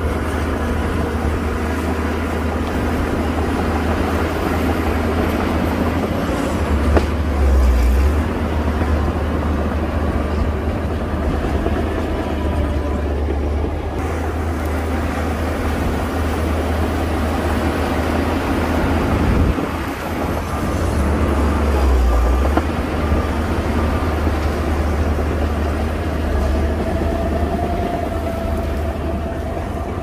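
Shantui DH17C2 crawler bulldozer's diesel engine running under load as it pushes soil, a steady deep rumble that swells louder twice, about seven seconds in and again around twenty-two seconds.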